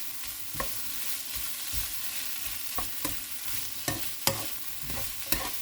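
Food sizzling in a frying pan as it is stirred, with a spatula clicking against the pan about six times.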